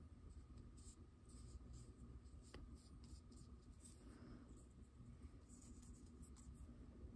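Faint scratchy strokes of a paintbrush on paper and through acrylic paint, coming at irregular intervals over a low steady hum, with one light tick about two and a half seconds in.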